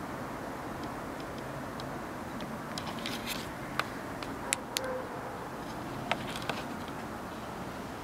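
Steady low background hum, with a scattering of sharp clicks and ticks through the middle seconds.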